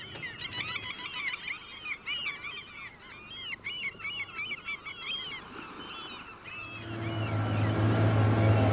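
Many gulls calling over one another in short, overlapping cries. About two-thirds of the way in, a boat's engine comes in as a steady low hum and grows louder as the calls thin out.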